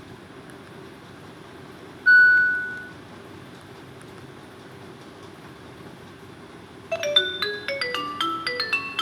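A single electronic beep about two seconds in, then near the end a Jio Phone ringtone begins: a quick, marimba-like melody of short, bright mallet notes.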